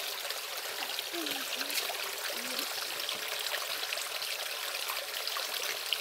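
Steady rushing of water from a waterfall-fed forest stream, an even hiss with no pauses.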